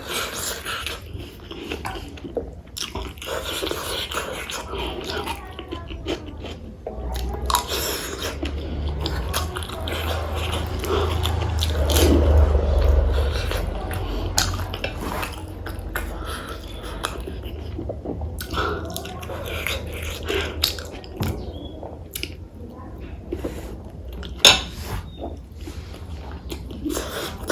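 A person chewing and biting food close to the microphone, with scattered clicks of cutlery against dishes.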